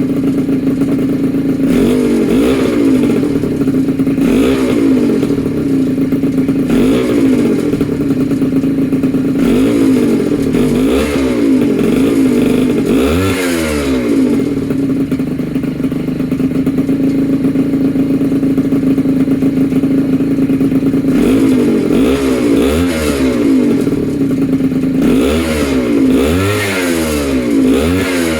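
Freshly rebuilt two-stroke engine with a Polini Corsa kit, on its first startup, idling with repeated short throttle blips: the revs rise and fall several times in the first half, hold at a steady idle through the middle, then blip in quick succession near the end.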